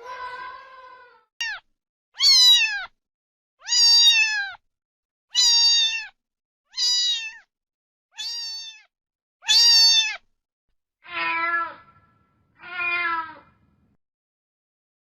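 Domestic cat meowing repeatedly, about nine meows roughly a second and a half apart, each sliding down in pitch. The last two meows are lower-pitched.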